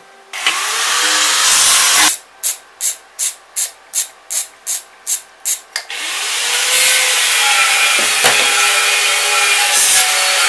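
A ratchet wrench on a long extension worked at an engine mount bolt. About ten quick, evenly spaced strokes come roughly three a second in the middle, with steady rasping before and after.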